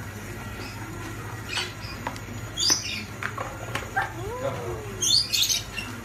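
Lovebirds chirping in short, high calls, with one longer call that bends in pitch midway and a louder cluster of chirps about five seconds in. A few light taps sound between them over a steady low hum.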